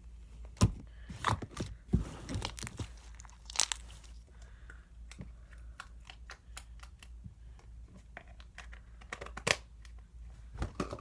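Slime being squeezed and pulled by hand, giving irregular sticky pops and crackles.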